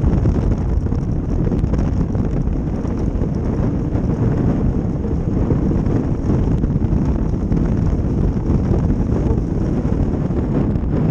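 Steady, loud wind rush buffeting the microphone of a camera mounted on a moving ice boat, mixed with the low rumble of its steel runners gliding over the ice.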